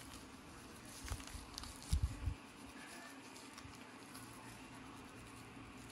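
Gloved fingertips and a tail comb scratching through dry, flaky scalp and thick hair: faint, irregular scratching and small clicks, with a few low thumps about one and two seconds in.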